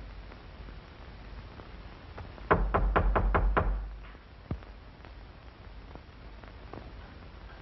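A quick run of about six knocks on a door, starting about two and a half seconds in, followed a moment later by a single lighter tap.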